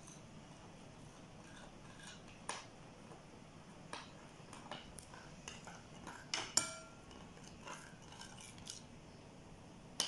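A spoon clinking and scraping against a bowl in scattered light taps, stirring a glue slime mixture as the boric acid solution goes in; two louder clinks come about two-thirds of the way through.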